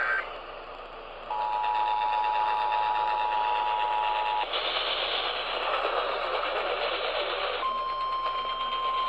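Emergency Alert System tones heard over AM radio with constant static hiss, announcing a flash flood warning. The tail of a warbling SAME digital header burst ends right at the start; about a second in, the two-tone EAS attention signal sounds steadily for about three seconds. After a few seconds of louder static, a single steady alert tone of the NOAA Weather Radio kind begins and holds.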